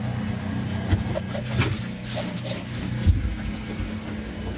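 A 110-volt self-priming electric transfer pump running with a steady hum, drawing water from a 2.5-gallon jug through clear plastic hose. A few knocks and some splashing come through over the hum.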